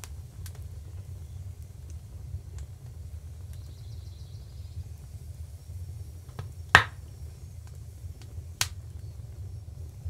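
Outdoor ambience: a steady low rumble with faint starling chatter early on, and two sharp snaps, the louder one about two-thirds of the way in and a smaller one near the end.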